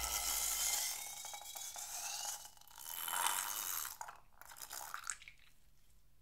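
Thick coloured glue and air being squeezed out through the cut neck of a long latex balloon: a hissing, sputtering rush with a thin, wavering squeal from the balloon's neck, coming in three bursts and stopping about five seconds in.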